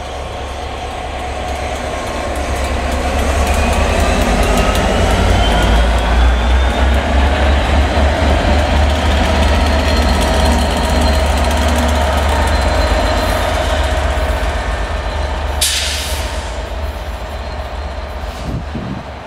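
Class 67 diesel locomotive, with its EMD two-stroke V12 engine, hauling a test train past at close range: the deep engine rumble and the wheels on the rails build up, with a whine rising in pitch, peak as the locomotive passes, then fade as the coaches and the rear locomotive go by. A short hiss cuts in about three-quarters of the way through.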